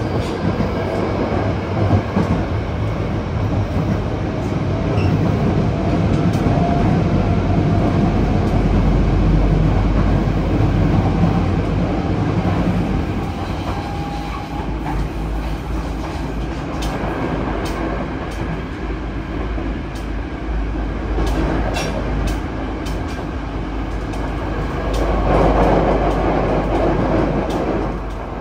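Running noise of a Yokohama Municipal Subway 3000S train with Mitsubishi IGBT-VVVF traction equipment, heard from inside the car: a loud, steady rumble of wheels, track and motors with a faint inverter whine. The rumble eases about halfway through as the train comes out of the tunnel into the open, and a few sharp rail clicks follow.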